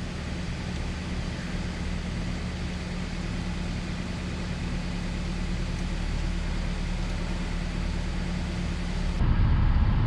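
Car engine idling with the air-conditioning blower running on fan speed 3, heard from inside the cabin as a steady hum. About nine seconds in, it switches abruptly to a louder rush of air.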